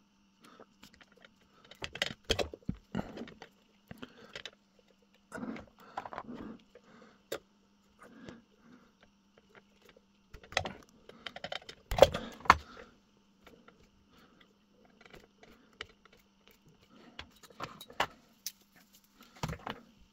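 Small, irregular metallic clicks, taps and rattles of pliers working at a lamp holder while its wires are fitted to the terminals, in clusters with the loudest about 2 and 12 seconds in. A faint steady hum runs underneath.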